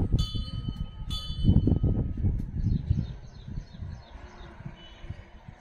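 A metal bell struck twice, near the start and again about a second in, each strike ringing on, while wind buffets the microphone with a low rumble. From about two seconds in, a bird chirps in a quick run of short notes, about three a second.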